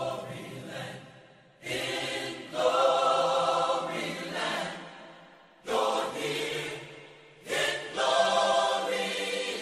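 Choral singing in long held notes, phrase after phrase with short breaths between them, heard through an old radio broadcast recording.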